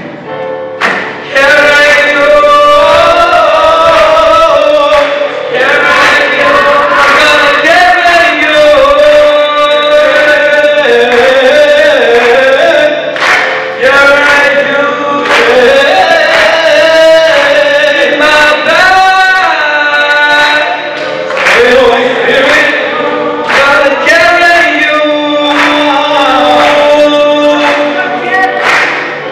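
High school boys' choir singing together in full voice, holding chords that shift every second or two.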